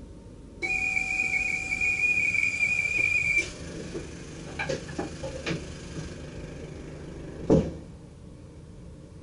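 A shrill, steady signal tone held for about three seconds and cut off abruptly, followed by a few light clicks and one heavy thump.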